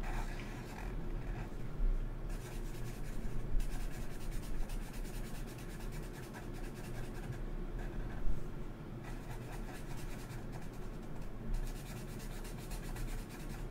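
Black felt-tip marker scratching on paper in quick back-and-forth strokes as two cartoon nostrils are coloured in solid, with a couple of brief pauses.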